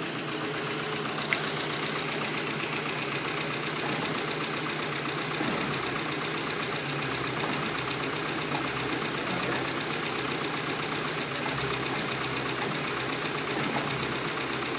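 Renault Twingo's 1.0 16V engine idling steadily, shaking on a failed right-hand engine mount.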